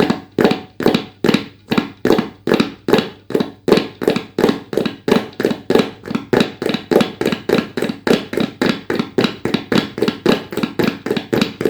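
Tabla played in a fast, even run of 'ke-te' strokes, about four a second, imitating a horse's galloping hoofbeats.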